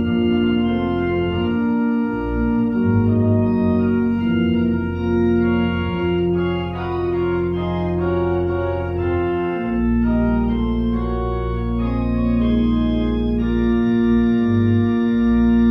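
Church organ playing sustained chords over long-held bass notes, the chords changing every second or so.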